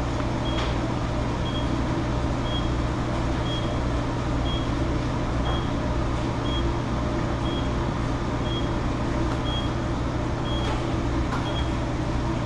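Steady noise and low hum of a commercial kitchen exhaust hood fan, with a short high electronic beep repeating about once a second. A few faint clicks of utensils come near the end.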